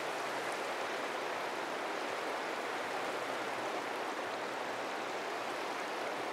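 Steady, even rushing of water with no breaks or rhythm in it.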